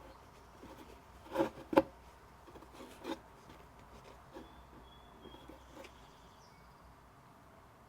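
Items from a book box being handled by hand: a few soft knocks and taps, the loudest two close together about a second and a half in and another about three seconds in, with light rustling between. Faint short high chirps in the background in the second half.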